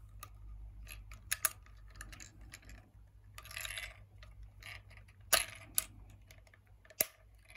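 Small plastic clicks, scrapes and knocks as a snorkel's black plastic camera mount is worked onto the snorkel tube, with a sharp snap about five seconds in and another near seven seconds.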